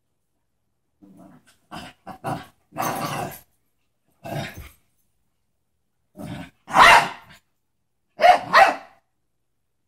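Dogs play-fighting, giving a string of short barks and growls: a low growl about a second in, then about eight sharp barks in clusters, the loudest a little before the final two.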